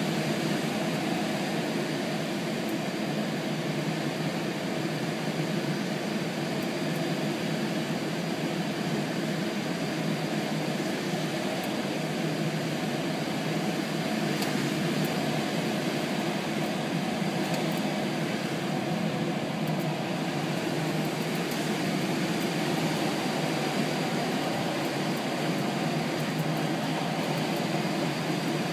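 Steady rushing airflow around a sailplane's cockpit in gliding flight: an even hiss with no engine tone.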